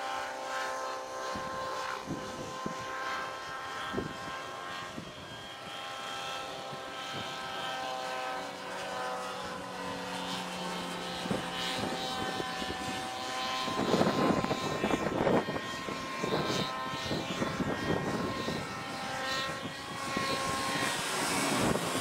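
Electric motor and propeller of a 59-inch model biplane whining in flight, the pitch shifting as the throttle changes through the manoeuvres. A few loud noisy bursts come about two-thirds of the way through.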